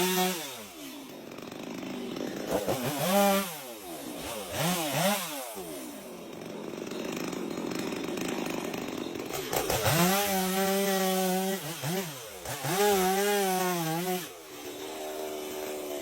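Chainsaw revving up and down several times, then held at high revs for two longer runs about two-thirds of the way through, before dropping back to a lower steady idle near the end.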